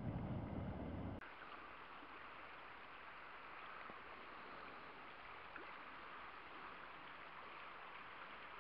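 Water spilling over a low dam spillway, a loud deep rush that cuts off about a second in; then a shallow river running fast over rocks, a steady even rushing hiss.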